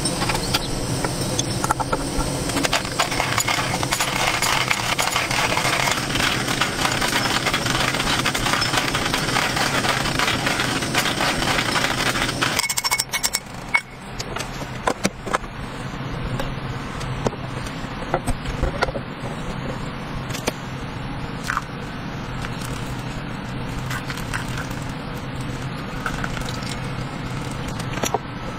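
Hand-cranked coffee grinder crushing coffee beans, a dense gritty crackle full of small clicks that stops suddenly about halfway through. After that, a few light clicks and knocks over a steady low hum.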